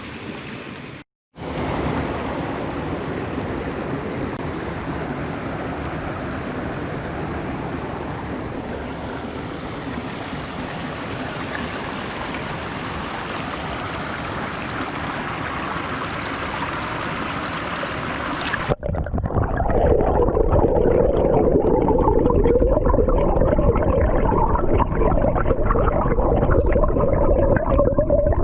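Waterfall: a steady rush of falling water. About two-thirds of the way through the sound cuts to a louder, duller rush of the falls.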